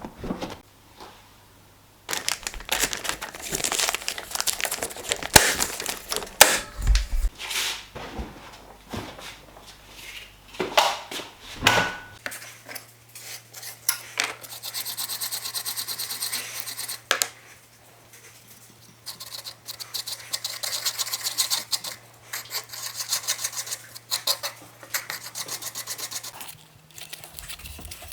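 Wood being worked by hand with an abrasive or scraping tool. There are irregular scrapes and a few sharp knocks in the first half, then long runs of quick, even back-and-forth rubbing strokes.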